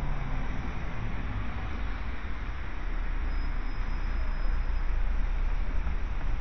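Steady low rumble and road noise from inside a moving vehicle as it drives along the road.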